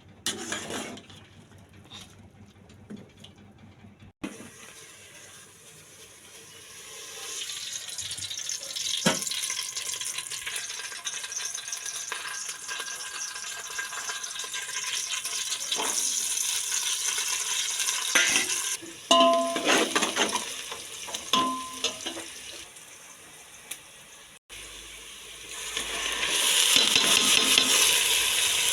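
Food sizzling as it is stir-fried in a hot pan for chow mein, with a utensil stirring and a few ringing metal clinks against the pan. The sizzle starts quietly after a few light clicks, builds over several seconds, and grows louder again near the end.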